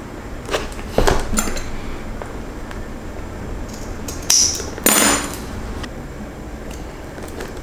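Handling noises on a wooden workbench: several sharp clicks and knocks of small hard objects being picked up and set down. The loudest come about a second in and again between four and five seconds in, as a small bottle and its screw cap are put down on the bench.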